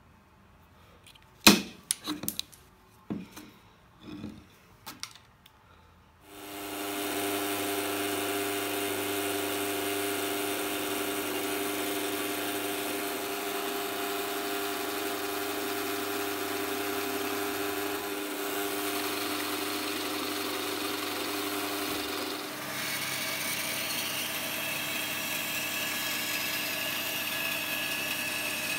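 A few sharp knocks as the wooden handle blank is handled on the bench, then a bench drill press starts and runs steadily, drilling into the rosewood blank. About two-thirds of the way through the sound changes to a bandsaw running.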